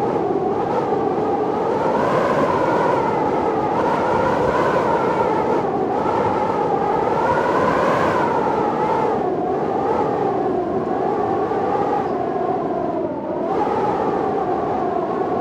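Storm wind howling without a break: a pitched moan that slowly wavers up and down over a rushing noise, easing briefly near the end.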